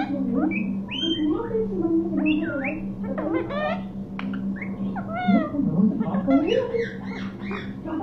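Rose-ringed parakeet chattering: a quick, continuous run of squeaky chirps, whistles and warbling, mumbled talk-like sounds that rise and fall in pitch.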